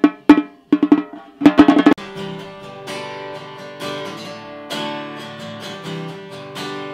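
A Remo-headed hand drum struck with a curved wooden beater, a quick run of sharp hits for about two seconds. Then a cutaway steel-string acoustic guitar strumming chords about once a second.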